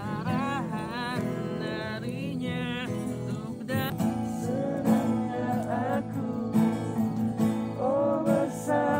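Acoustic guitar strummed as accompaniment while a voice sings a melody with wide, wavering vibrato.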